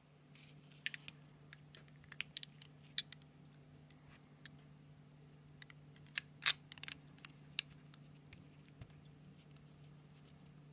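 Scattered light clicks and taps from a Montblanc Bohème ballpoint pen's black resin and platinum-plated metal parts as they are handled and fitted together. The loudest cluster comes about six seconds in, over a faint low hum.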